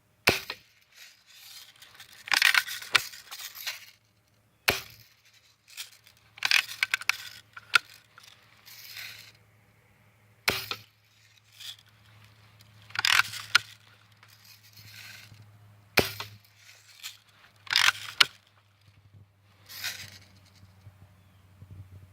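Lever-action BB rifle fired again and again, roughly every five seconds: a sharp pop for each shot, and about two seconds later the metallic rattle of the lever being cocked for the next shot.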